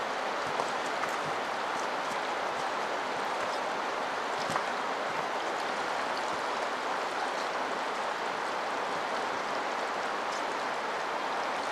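Steady rush of a fast-flowing river running over stones, an even noise throughout, with a few faint clicks near the start and about four and a half seconds in.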